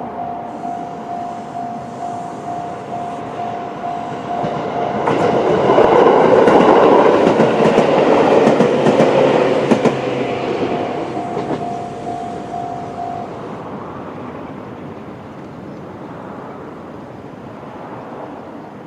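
Level-crossing electronic warning bell (JR Central-type tone) ringing as a steady pulsing tone while a Chichibu Railway 6000-series electric train passes over the crossing. The train's wheels clack over the rail joints, loudest from about 5 to 11 seconds in; the bell stops about 13 seconds in and the train's rumble fades away.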